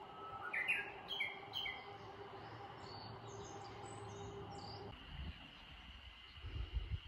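Small wild birds chirping and singing in woodland: a few bright, loud chirps in the first two seconds, then higher, thinner calls. After about five seconds the birdsong stops and an uneven low rumble takes over.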